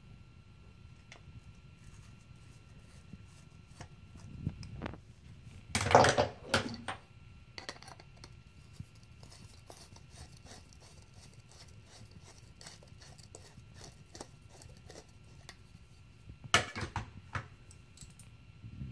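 Screwdriver turning the air/fuel screw out of a dirt bike carburetor: faint small metal clicks and scrapes as it is backed out, with two short clusters of louder knocks from handling the tool and carburetor body, about six seconds in and again near the end.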